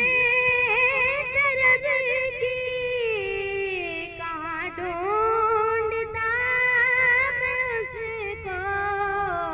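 A boy's high voice singing a naat through a microphone, drawing out long melismatic notes that slide and waver between pitches without words.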